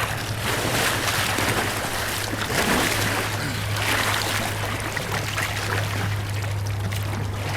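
Whitewater rushing through a river play hole, with louder surges of splashing water every second or two and a steady low hum underneath.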